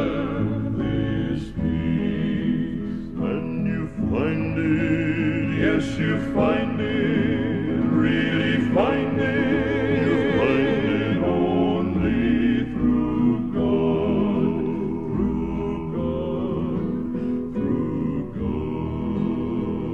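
Male gospel quartet of two tenors, baritone and bass singing in close harmony, holding notes with vibrato.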